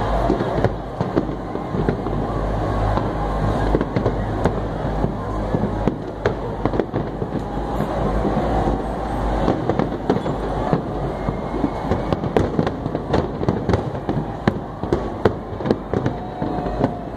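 Fireworks display: a dense, continuous run of bangs and crackling shells over a steady low rumble, with sharp reports coming faster in the second half.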